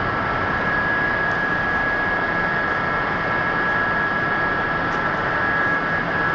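A machine running steadily, with two constant high whining tones over an even mechanical noise.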